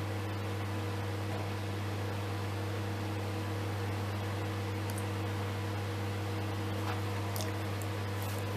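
Microwave oven running: a steady low hum with an even hiss over it.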